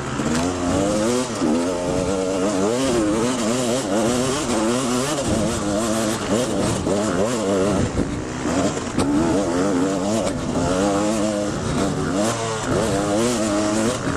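2011 KTM 250 XC two-stroke enduro motorcycle engine, heard from the rider's helmet, revving up and down constantly as the throttle is worked over rough gravel track.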